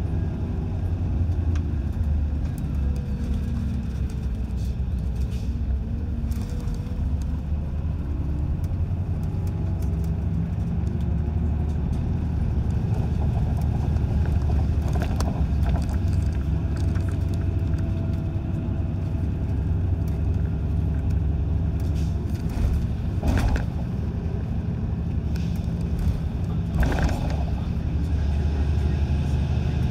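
Inside a bus coming down a steep, winding mountain road: a steady low rumble of engine and road noise, with the engine's pitch gently rising and falling. There are short, sharper sounds at about 23 and 27 seconds.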